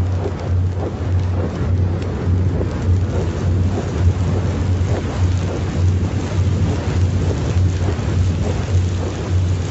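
Fire sound effect: a rushing, crackling noise over a low bass pulse about twice a second.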